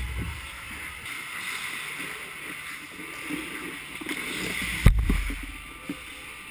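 Ice hockey rink heard from inside the goal: skates scraping on the ice, and about five seconds in a sharp knock with a low thud as something strikes the goal near the camera.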